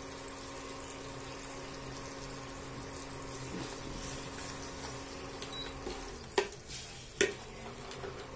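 Tomato chutney with water added bubbling and sizzling in an aluminium kadhai on an induction cooktop while a wooden spatula stirs it, over a steady low hum. Two sharp knocks near the end.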